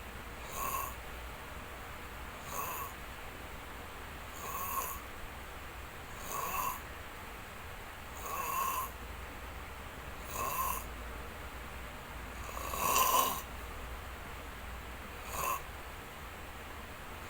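A sleeping person snoring: eight short snores about two seconds apart, the one about thirteen seconds in the loudest and longest.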